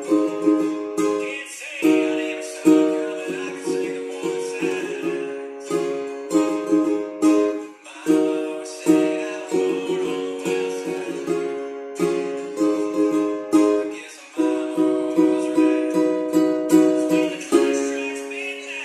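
Ukulele with a capo at the first fret strummed in a rhythmic down-up pattern through the chords Dm, F, C and G. Near the end a chord is left ringing and fades.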